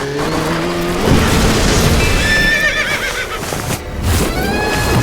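Horse whinny sound effect, a wavering trill about two seconds in, over music and other meme sound effects.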